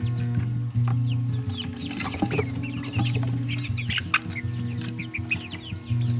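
A brooder full of six-week-old chicks peeping and chirping: many short, high calls overlapping, several sliding down in pitch, over a low steady hum.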